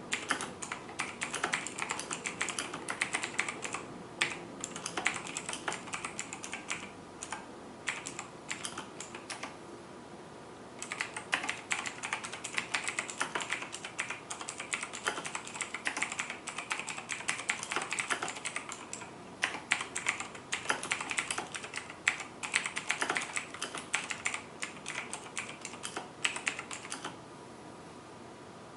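Continuous fast typing on a Razer BlackWidow Chroma mechanical keyboard with clicky Razer Green switches, dense sharp clicks and clacks, with a brief pause about ten seconds in and stopping near the end.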